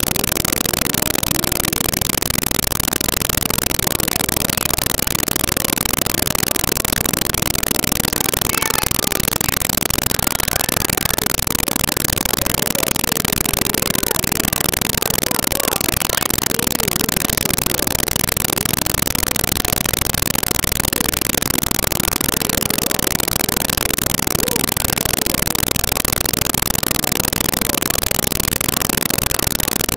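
Steady hiss of static that covers the whole recording evenly, with no clear sounds standing out: a badly degraded audio track.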